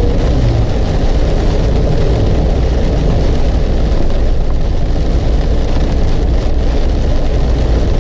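Car driving through a heavy thunderstorm rain: a steady, loud rush of road and rain noise with a deep rumble underneath.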